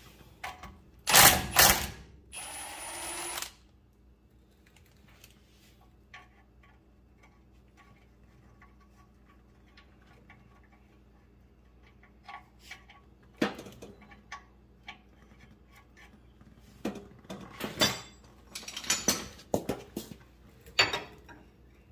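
Hand tools clinking and clattering against the steel steering linkage of a squarebody Chevy truck as the tie rod end nuts are worked loose with a wrench. A loud clatter about a second in is followed by a short hiss, then sparse faint ticks, and a busier run of metallic clicks and knocks in the last few seconds.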